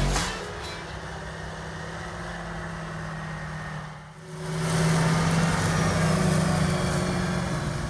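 Diesel engine of harvest machinery running steadily. It dips briefly about halfway through, then comes back louder.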